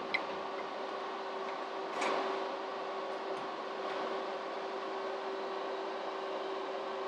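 Powered-on AHP AlphaTIG 200X inverter welder running with a steady fan hum and a constant tone. There is a small click at the start and another about two seconds in as the multimeter probes are handled.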